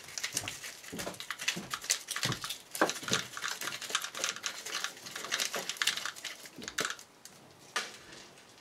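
Rapid irregular clicking, rattling and scraping of small hard pieces being handled by hand, as a dismantled aerial firework shell's parts are picked out and sorted.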